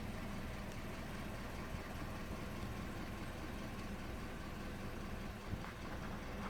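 2010 Toyota Yaris engine running steadily, with no revving. The engine has a misfire, which the owner says makes it shake at idle.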